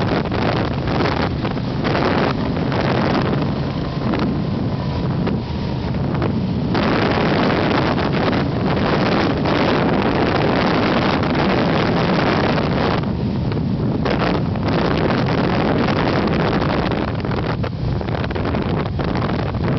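Motorcycle engine running at road speed under heavy wind rush on the microphone, with the wind gusting and dipping every few seconds.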